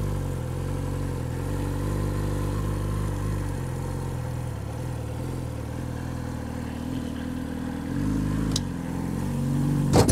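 A 2018 Yamaha R6's inline-four engine running at low revs while the clutch is slipped to creep the bike up a loading ramp, with a brief rise in revs about eight seconds in. A sharp knock near the end is the loudest sound.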